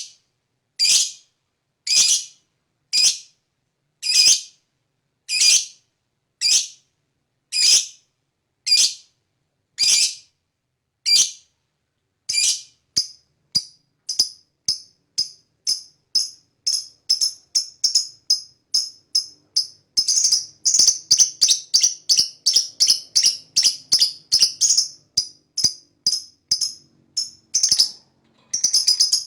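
Lovebird calling: sharp, high calls about once a second that quicken from about twelve seconds in into a fast, continuous chattering trill (the 'ngekek' song), with a brief break near the end.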